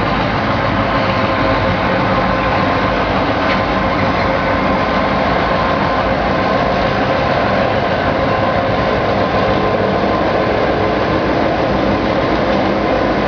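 Two Queensland Rail diesel-electric locomotives, 1774 leading and 1737 behind, running steadily as they haul a passenger train slowly past close by. Their engine drone is continuous and even.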